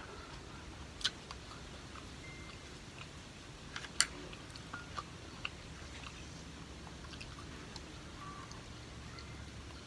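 Mukbang eating sounds: faint chewing with a few sharp clicks, the loudest about four seconds in, typical of a spoon or chopsticks tapping a bowl.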